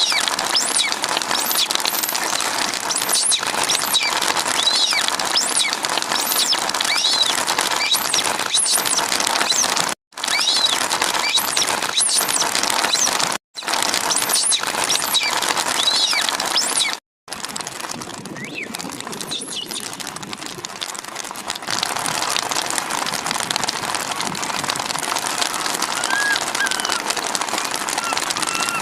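Heavy rain falling steadily, with many short high-pitched calls over it through the first half or so, fewer later. The sound cuts out briefly three times.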